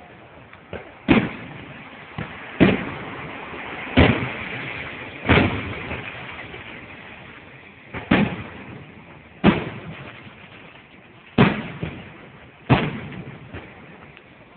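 Aerial fireworks shells bursting overhead: about eight loud booms, one every second or two, each followed by a fading echo.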